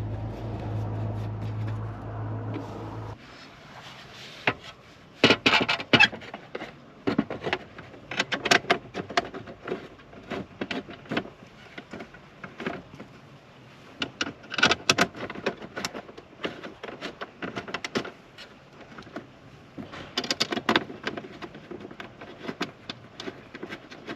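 A steady low hum cuts off about three seconds in. Then come irregular clusters of clicks, knocks and rattles, like tools and parts being handled while working on a car's dashboard.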